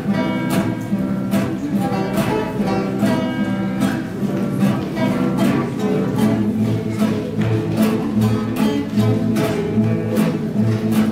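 A trio of acoustic guitars, one of them nylon-string, playing a piece together, strummed in a steady rhythm.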